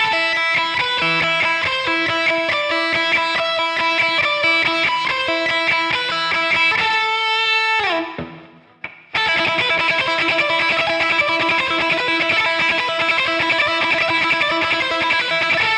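Electric guitar playing a quick line of A natural minor scale notes along a single string, alternating with the open E string as a repeated drone note. The line stops about eight seconds in with a falling note, then resumes after a pause of about a second.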